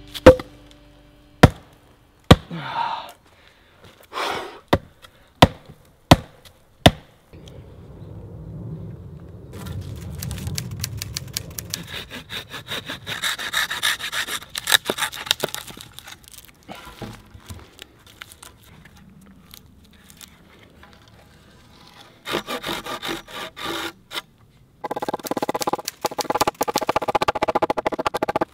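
A log slammed down onto the top of a wooden post about seven times in the first few seconds, driving it into the ground: sharp wooden knocks. Then a folding pruning saw cuts through a pine trunk with steady back-and-forth strokes. Near the end, fast, regular strokes cut a notch into a pole.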